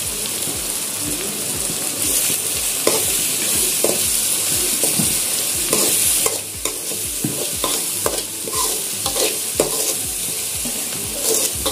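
Onion-tomato masala sizzling in hot oil in a metal kadhai while a perforated metal spoon stirs it, scraping around the pan in irregular strokes over a steady sizzle.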